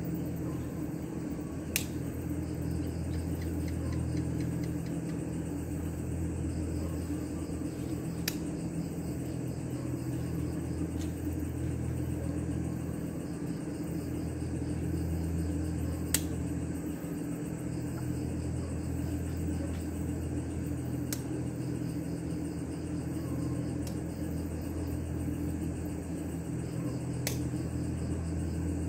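A steady low mechanical hum with crickets chirping faintly in rapid pulses, broken by about five sharp clicks.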